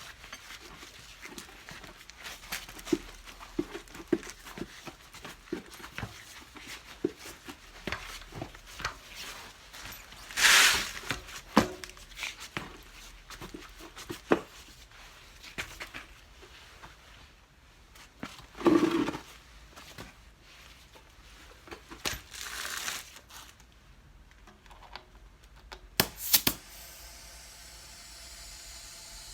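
Hand work on a rear-cart wheel during a tyre change: scattered light clicks and knocks, with a few louder rustling scrapes, and a steady hiss starting near the end.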